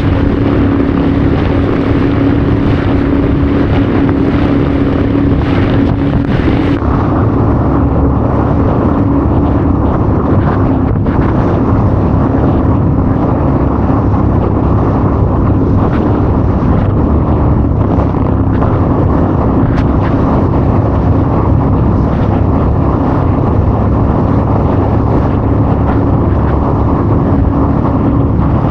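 Jet ski running at speed across open ocean: a steady engine drone with a held hum, under heavy wind rushing over the microphone.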